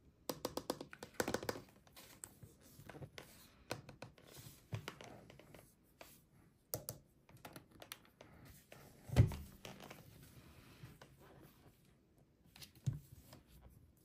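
Fingers and nails handling a plastic toy potion bottle and its packaging: a run of small taps, clicks and scratches on hard plastic, with one thud about nine seconds in, the loudest sound.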